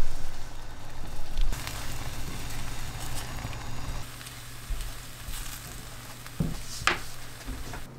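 Beaten eggs sizzling in butter in a frying pan as a spatula stirs them into scrambled eggs, with a brief sharper sound about seven seconds in.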